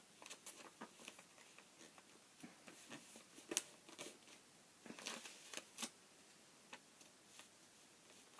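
Sheet of printer paper being handled and folded, short crinkles and rustles, the sharpest about three and a half seconds in and a cluster around five to six seconds, with near silence between.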